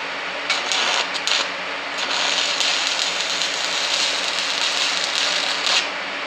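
Stick-welding arc from a 7018 electrode on AC at about 160 amps, crackling on steel box tubing. A few short sputters come as the arc is struck, about half a second in; the crackle then runs steadily from about two seconds in until it stops shortly before the end. The setting is a little too hot, too many amps, and the weld starts to blow out the gap.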